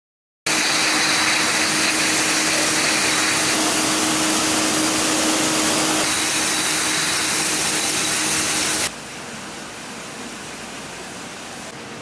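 Bottling-line machinery: a rotary bottle filler running with a loud steady hiss and a low hum. It starts suddenly half a second in, and about nine seconds in it drops to a quieter steady machine noise.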